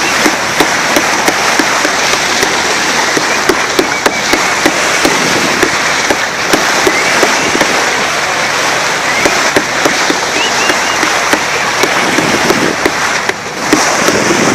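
Steady rush of wind and water spray around a moving boat, dotted with frequent sharp crackles and splashes.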